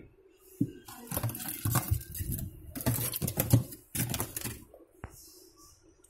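Crinkled aluminium foil over a refrigerator evaporator rustling and crackling under a hand, in three bursts, with a single sharp click near the end.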